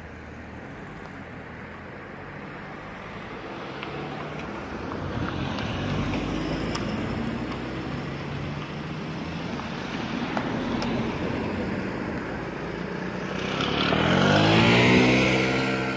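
Road traffic running steadily. Near the end a passing vehicle's engine grows louder and rises in pitch as it accelerates close by.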